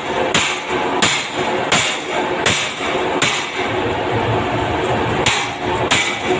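Repeated sharp metal-on-metal blows with a ringing edge, about one every 0.7 seconds. They pause for about two seconds midway, then start again.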